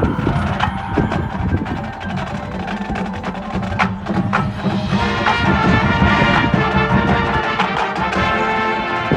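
Marching band playing: woodblock-like percussion clicks and bell tones, with sustained chords filling in about halfway through.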